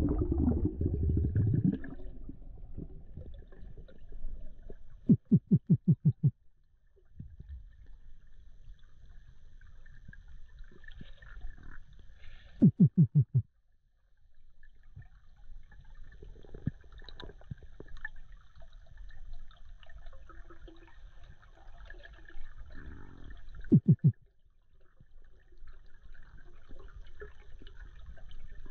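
Muffled underwater sound picked up by a diver's camera: a faint low rumble and hiss with a steady thin whine, broken three times by a loud rattle of rapid pulses lasting about a second each.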